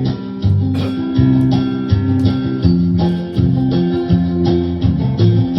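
Instrumental intro of a country song: strummed guitar chords over a bass line, the chords changing every half-second or so.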